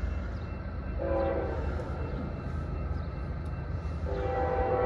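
Locomotive air horn sounding two chord blasts, the first about a second in and lasting about a second, the second starting near the end, over a steady low rumble.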